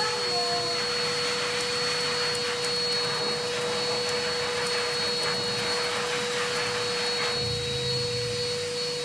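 Steady whine and hum of an electric motor running continuously at an even level, with a constant pitched tone over a wide hiss.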